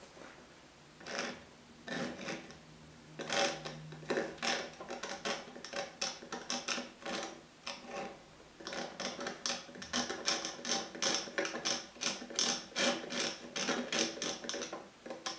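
Quick dabbing and scraping strokes of a painting tool laying thick oil paint onto a stretched canvas: a few single taps at first, then a steady run of about three to four strokes a second from about three seconds in. The taut canvas rings faintly under each stroke.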